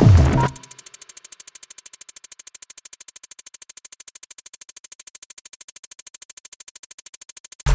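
Electronic background music. The beat and bass drop out about half a second in, leaving a quiet, fast-pulsing high synth line for several seconds, and the full beat comes back in at the very end.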